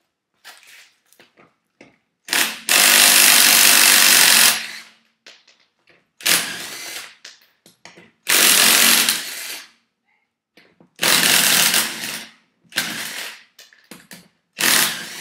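Handheld power tool driving a 3/4-inch socket, spinning a car's lug nuts off the wheel studs in six bursts, the first about two seconds long and the others about a second each.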